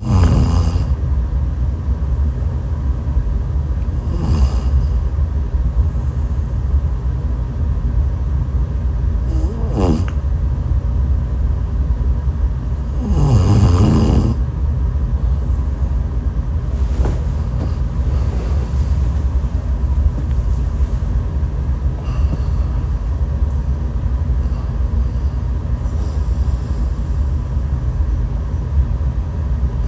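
A woman snoring, with distinct snores that glide in pitch every four to five seconds in the first half and fainter ones later, over a steady low rumble.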